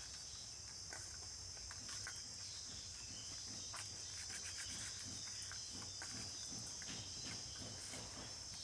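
Steady high chirring of insects, with faint wet squelches and light clicks of hands rubbing rohu fish pieces with turmeric, salt and mustard oil in a steel bowl.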